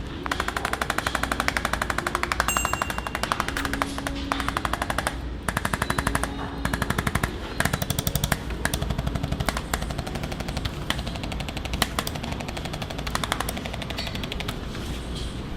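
Rapid mechanical tapping in bursts of a few seconds each with short pauses between, the strokes coming too fast to count, over a faint motor hum.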